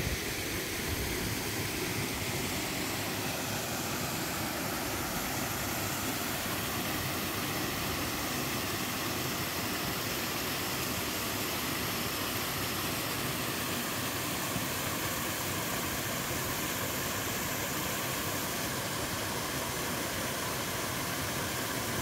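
Small two-tier mountain waterfall and the stream below it, water rushing steadily over rock.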